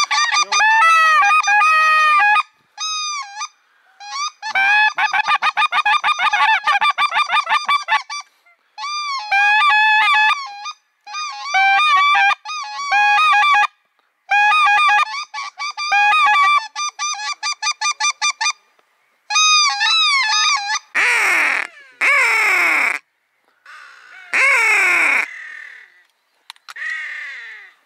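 Geese honking: rapid runs of high honks come in bursts of a second or two with short gaps between them. Near the end there are a few harsher calls that fall in pitch.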